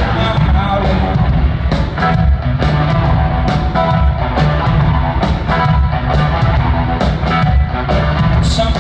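Live rock band in an arena: electric guitar over drums and bass, driven by a steady drum beat.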